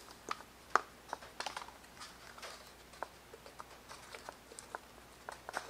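Light, irregular clicks and taps of an EPP foam flying wing and its plastic parts being handled and fitted together.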